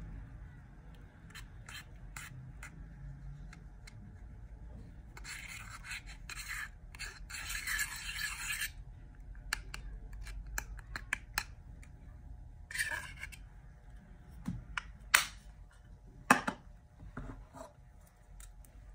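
A thin pin scratching and scraping pressed powder blush out of a compact, the powder crumbling into a glass bowl, with small scattered ticks and a longer run of steady scraping about five seconds in. Two sharp clicks or taps in the last third are the loudest sounds.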